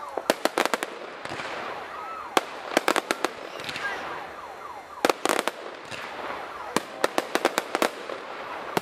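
Aerial fireworks bursting overhead: clusters of sharp cracks and pops, several in quick succession every second or so, over a steady background of noise.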